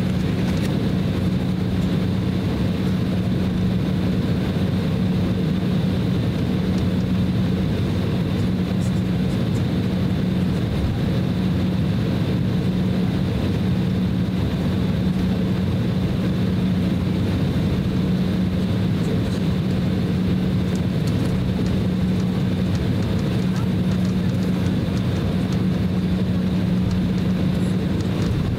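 Steady cabin drone inside an Embraer E190 airliner taxiing, its two GE CF34 turbofans at low thrust. A constant low rumble carries a steady low hum and a faint high whine.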